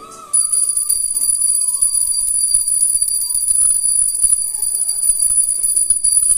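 A small bell ringing rapidly and without a break, a high, shrill steady ring that starts suddenly about a third of a second in.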